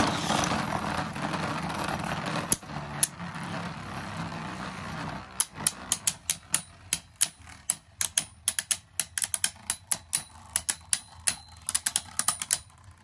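Two Beyblade Burst spinning tops whirring against each other in a plastic stadium just after launch. From about five seconds in they clash over and over: a fast, irregular run of sharp plastic clicks.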